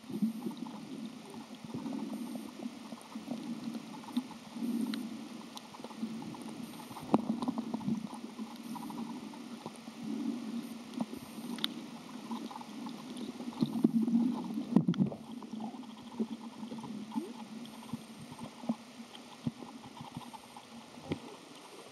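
Underwater sound picked up by a camera held below the surface: low, muffled water sloshing that swells every second or two, with scattered sharp clicks.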